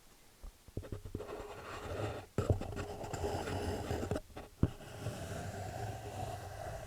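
Wood being rubbed and scraped, a steady scratchy texture broken by two sharp knocks a couple of seconds apart.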